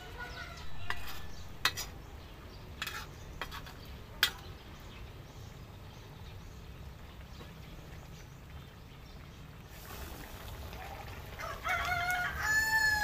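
A rooster crows once near the end, one long call with a falling tail. Before it come a few sharp knocks.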